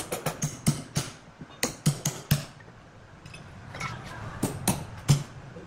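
Hand hammer striking repeatedly in quick blows, about nine in the first two and a half seconds, then a pause, then three more blows near the end.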